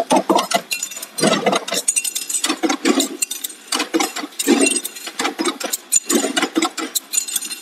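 Sheet-metal forming press and the metal parts in it clanking, one or two knocks and clinks a second in an uneven rhythm.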